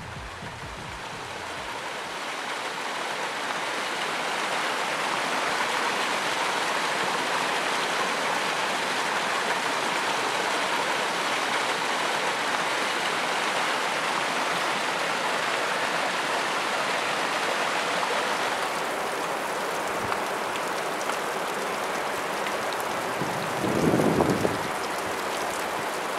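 Water cascading over rocks in a small mountain stream, a steady rushing that swells in over the first couple of seconds. About two-thirds of the way through it gives way to a lighter pattering of water dripping and trickling down a mossy rock face, with one brief louder sound near the end.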